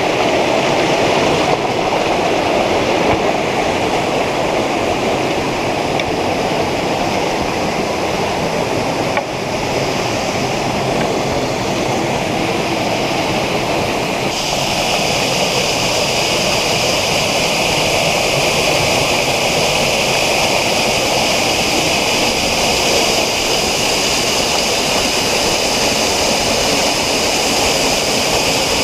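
Water rushing steadily over a waterfall or cascade in a stream, a loud, even hiss. About halfway through the sound turns brighter and hissier.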